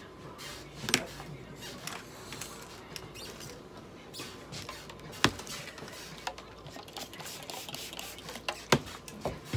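Scattered clicks, taps and rustles of hands handling plastic medical supplies (IV tubing and a spray bottle) at a steel exam table. A few sharper knocks stand out, about a second in, past the middle and near the end.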